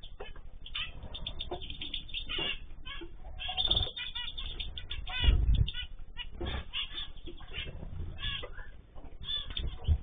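Aviary cage birds, canaries and finches, chirping and calling over one another in short, overlapping notes. A few brief flurries of wing flapping come about 4, 5 and 6.5 seconds in, as birds fly and land.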